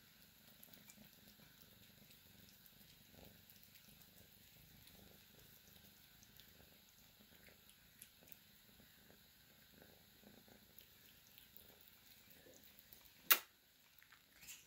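Domestic cat purring, faint and steady. A single sharp click near the end is the loudest sound.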